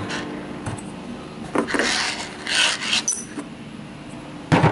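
Handling noise of small screws and a stainless steel parts tray on a tabletop: scattered rattles and scrapes, a short high metallic ring about three seconds in, and a sharp knock near the end.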